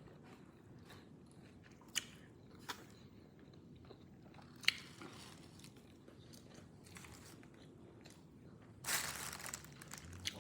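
Quiet close-up eating sounds: chewing and biting into fried hot wings, with a few sharp clicks and a brief rustle about nine seconds in.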